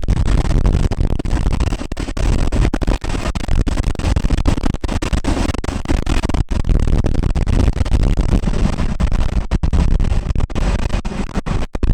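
Loud helicopter rotor and engine noise mixed with heavy wind buffeting on the microphone from the rotor downwash. The sound cuts out for an instant several times.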